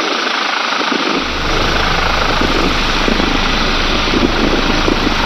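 Helicopter rotor and turbine engine noise heard from inside the cabin with the side door open, steady as the aircraft hovers and creeps forward. A deeper rumble comes in about a second in.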